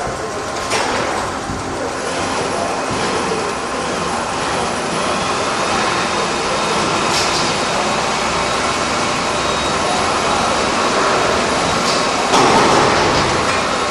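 Fully automatic double-head horizontal band resaw system running, a steady mechanical noise with a faint whine, as a timber beam is carried along its powered roller conveyor; a few light knocks, and a louder clatter near the end.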